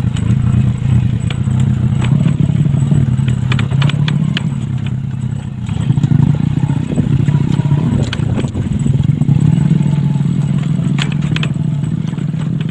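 Motorcycle engine running steadily as the bike rides down a rough dirt track, with scattered clattering knocks from the bike jolting over the ground.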